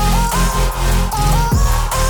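Electronic dance music with a heavy beat: a booming bass that drops in pitch on each beat and a short synth note that rises over and over.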